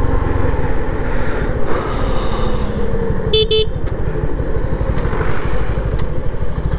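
Suzuki V-Strom SX 250 motorcycle engine running steadily at low road speed. About three and a half seconds in, a vehicle horn beeps twice in quick succession.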